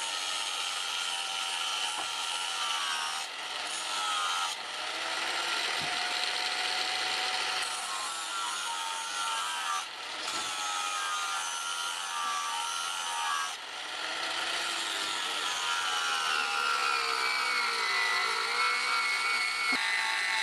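Handheld angle grinder with a flap disc grinding a forged steel knife blade. The whine shifts in pitch as the disc is pressed and eased off the steel, breaks off briefly a few times, and sags lower near the end.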